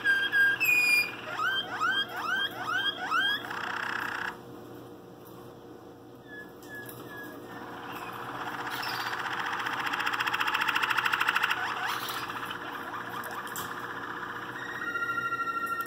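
Waterslager canary singing: a quick series of rising whistled notes, then a long fast trill that swells louder and breaks off, and a steady held whistle near the end.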